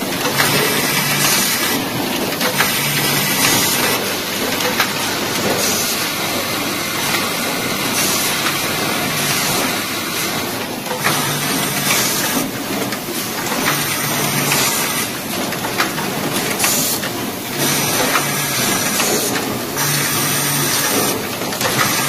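Fully automatic DC connector cable soldering machine running its cycle: steady mechanical noise with frequent sharp clicks and a short low hum that repeats every second or two.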